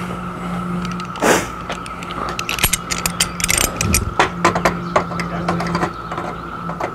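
Irregular metal clicks and rattles from the end fittings of a Carefree manual RV awning being worked loose by hand, with one sharper clack about a second in. A steady low hum runs underneath.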